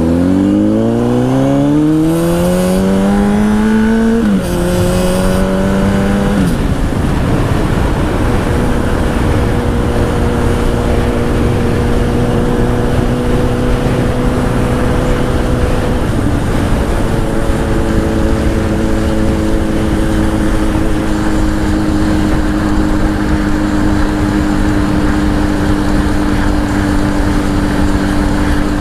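Honda CBR1000 sport bike's inline-four with a Two Brothers exhaust accelerating, its pitch climbing, dropping at a gear change about four seconds in and again near six seconds, then cruising at a steady engine note. Heavy wind rush runs underneath.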